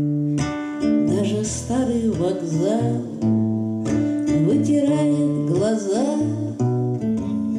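Acoustic guitar and violin playing a song together, the guitar strummed under a melody that slides between notes.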